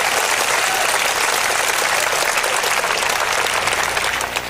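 A large audience applauding, a dense steady clapping that dies down near the end.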